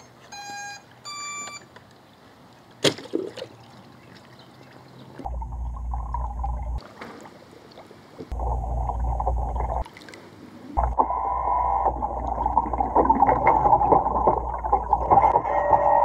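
BestRobtic PC01 robotic pool cleaner giving two short electronic beeps, then a knock about three seconds in. After that comes muffled underwater noise of water with a low hum, in three stretches that start and stop abruptly, the last and loudest near the end.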